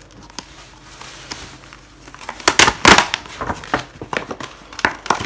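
Handling noise from a hard-drive caddy and its parts: a short quiet spell, then a string of sharp clicks and crinkles about two seconds in, loudest around the third second.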